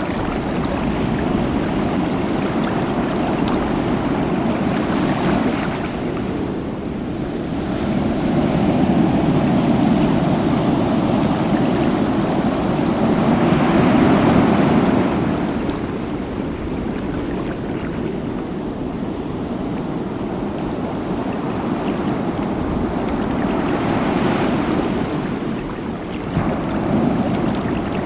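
Sea waves washing in a steady rush, swelling louder and falling back every few seconds.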